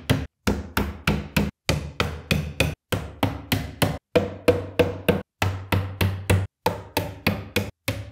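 Hammer driving small nails through the thin back panel into the chipboard frame of an IKEA Kullen chest of drawers: quick, sharp strikes, about three a second, in short runs of a few blows per nail.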